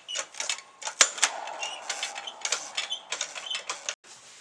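Irregular clicks, knocks and short squeaky creaks of a mechanism being handled, ending about four seconds in.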